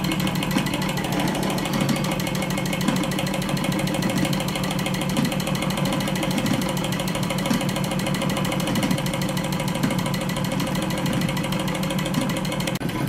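Reichelt Stirling hot-air engine running steadily while belt-driving a Märklin toy saw, with a fast, even mechanical clatter.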